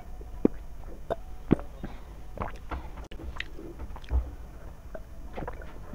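A person gulping water from a glass, close to a clip-on microphone: a series of short swallowing sounds, one roughly every half second.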